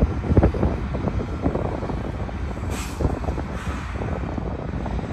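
BNSF freight train rolling past: a steady low rumble with dense, irregular clatter of wheels on the rails, and wind on the microphone. A short hiss comes about three seconds in.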